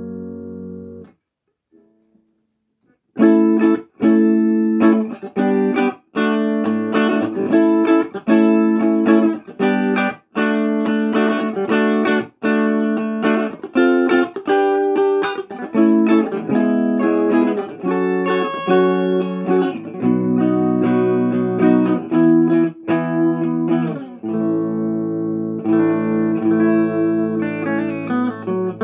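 Electric guitar (a Jackson Fusion Pro) played through an Orange Crush 35RT combo amp. A chord rings out and dies away about a second in. After a short gap, a riff of chords and notes begins, many of them cut off short, and longer ringing chords come near the end.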